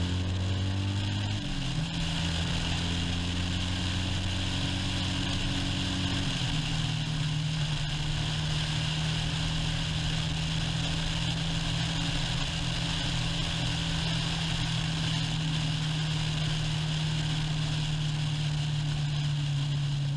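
Motorcycle engine running steadily at road speed under a steady hiss of rushing air. Its pitch steps down about a second and a half in and again about six seconds in, then holds.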